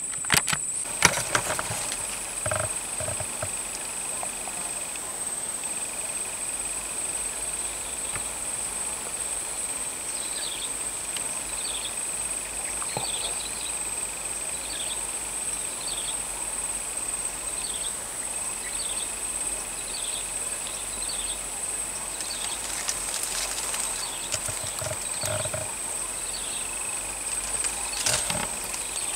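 Steady high-pitched drone of insects, with a second, lower steady tone beneath it and a short chirp repeated about once a second through the middle. A few soft knocks and rustles come near the start and near the end.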